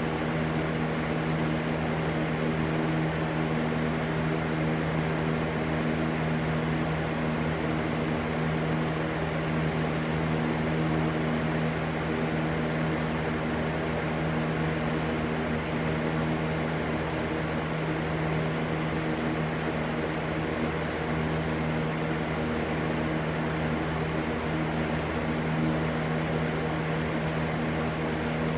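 Steady, unchanging rushing white noise with a constant low hum underneath.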